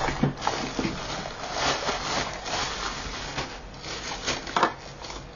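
Handling noise of a Hamilton Beach single-serve blender's plastic travel cup and motor base: irregular rubbing, rustling and light knocks of hard plastic, with a brief louder rub near the end. The blender is not running.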